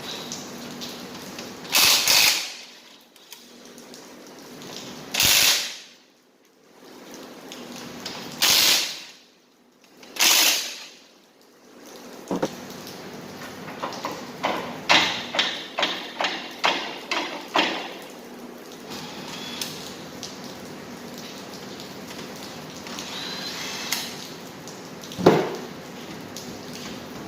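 Hand and air tool work on an axle: four short, loud bursts of hissing noise, then a quick run of about a dozen sharp clicks, and a single knock near the end.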